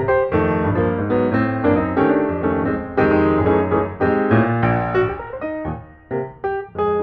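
Background music led by piano, quick repeated notes over a low bass line, dipping briefly about six seconds in.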